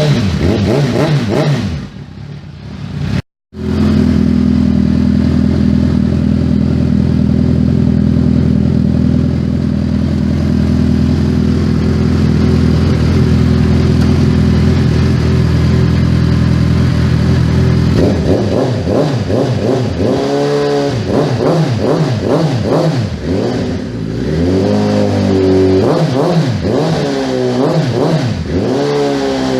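Suzuki Bandit 650N's fuel-injected inline-four engine running through an aftermarket exhaust. It idles steadily, then is revved in repeated throttle blips over the last third. Near the start a rev dies away, broken by a brief moment of silence.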